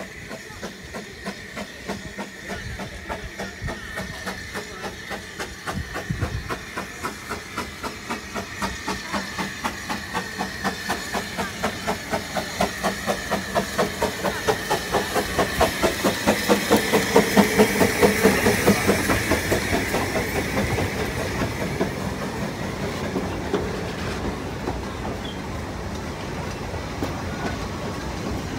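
Ffestiniog Railway narrow-gauge steam locomotive working along the platform: regular chuffs with steam hissing from its cylinders. The chuffs grow louder and closer together until it passes about 17 seconds in, and then the carriages roll by with a steady rumble.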